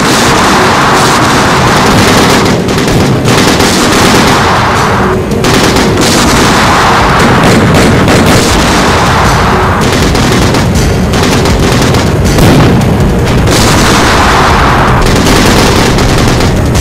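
Loud battle sound effects for a staged war scene: rapid gunfire and booms over dramatic music, with repeated noisy swells every few seconds.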